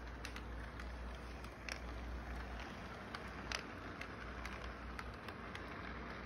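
Electric model train running along its track: a steady low hum and rumble with scattered sharp clicks.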